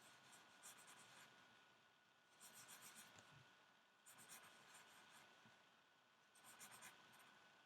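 Faint scratching of a drawing implement on paper, in four short bursts of strokes as letters are written out.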